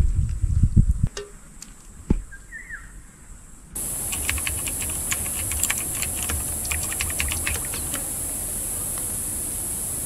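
Food being served and spread: dull handling noise as a wooden spatula lifts a saucy tuna mixture onto a glass plate, then light clicks and taps as a wooden spoon spreads the mixture on toast over a steady high hiss. The clicking starts about four seconds in and stops near the end.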